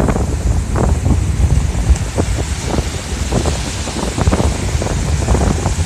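Ocean surf breaking and washing up the beach, largely covered by wind buffeting the microphone in a constant low, crackling rumble.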